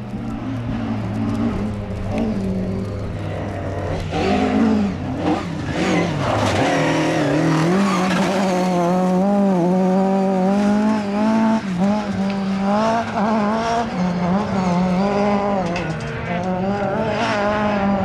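Ford Sierra RS500 Cosworth rally car's turbocharged four-cylinder engine being driven hard, its pitch rising and falling again and again with throttle and gear changes as the car slides through corners on loose gravel, with the hiss and spray of the tyres on the gravel.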